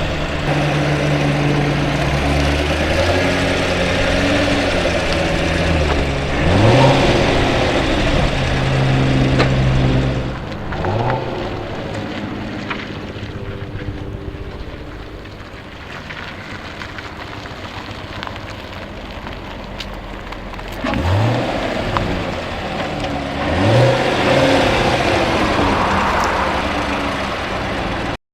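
Car engine idling, blipped up in pitch in quick revs about four times, the sound cutting off abruptly at the end.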